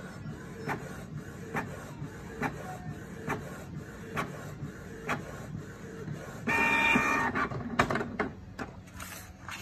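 Canon Pixma G3420 inkjet printer printing a nozzle check page: the print head carriage shuttles back and forth with a regular click a little under every second over a steady mechanical hum. About two-thirds of the way through, a louder motor whine lasts about a second.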